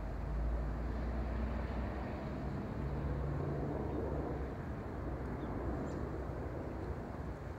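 Boeing 737-700's CFM56 turbofan engines heard from the ground as the jet flies past on approach: a low, steady rumble that swells slightly midway.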